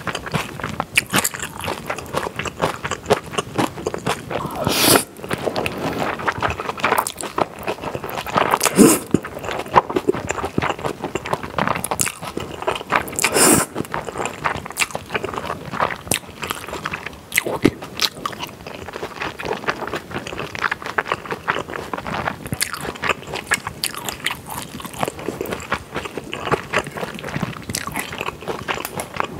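Close-miked eating of jjajang noodles in black bean sauce: noodles slurped into the mouth and chewed wetly, with crunchy bites in among the chewing.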